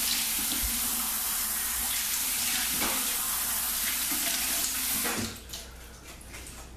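Cold water running from a sink tap as the face is rinsed after a shave, with a steady hiss of water; the running water stops about five seconds in.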